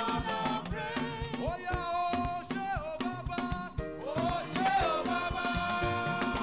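Lively praise-and-worship band music with a driving drum beat under a melody line.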